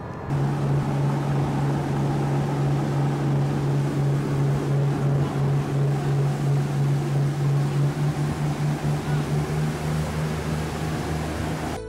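Motorboat engine running at speed: a steady low hum over a rush of water and wind, starting abruptly just after the start and wavering in pitch and level over the last few seconds.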